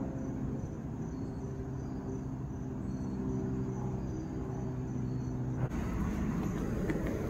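Woodland ambience: a steady low hum with faint, regularly repeating insect chirps. Near the end the hum gives way to a rougher rustling noise.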